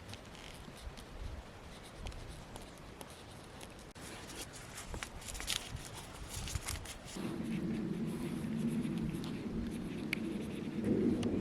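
Soft scratching and scraping with light clicks as hands sow pepper seeds. About seven seconds in, a low rumbling noise comes in and grows louder near the end.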